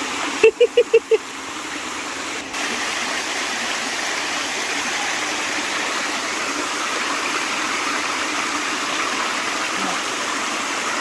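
Steady rushing of a waterfall and creek. About half a second in, a quick run of five short high notes is the loudest sound. The water noise dips for about two seconds after them and returns abruptly.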